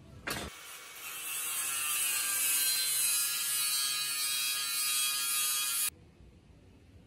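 Angle grinder with a cutting disc cutting through steel square tubing: a loud, high-pitched grinding hiss that begins just after a click, holds steady for about five seconds and stops abruptly near the end.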